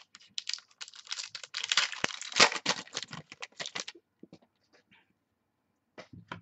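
Stack of trading cards being flipped through by hand: a quick run of light card-on-card clicks for about four seconds, then a few scattered clicks.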